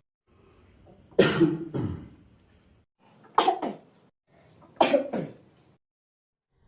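A person coughing: three short bouts, each of two quick coughs.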